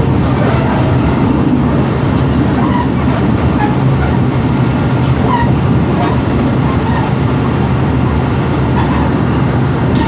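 Passenger train running, heard from inside the coach: a loud, steady rumble of wheels on the track, with faint passenger voices.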